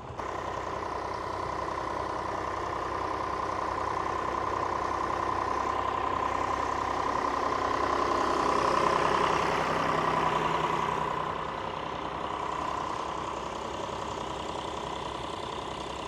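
Vintage John Deere tractor engine running steadily, growing louder about halfway through and then easing off again.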